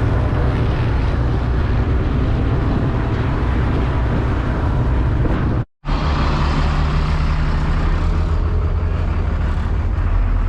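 Engine running steadily at the ice harvest, a dense mechanical noise with a low hum; it cuts off abruptly for a moment about halfway through and then carries on.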